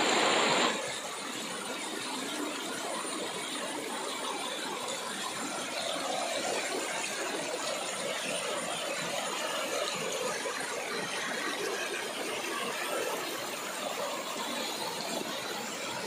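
Small waterfall rushing and splashing over sloping rock slabs, a steady rushing noise; it is louder for the first second, then drops a little and holds steady.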